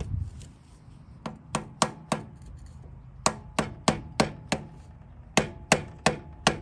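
Hammer blows on a pipe driver, tapping a new axle seal into a Sears garden tractor's transaxle housing: about thirteen sharp strikes in three quick runs of four or five.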